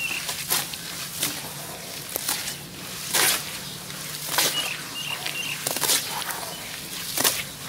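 Hands squeezing and swishing wet dirt paste in water in a basin: irregular wet squelches and splashes at about one a second.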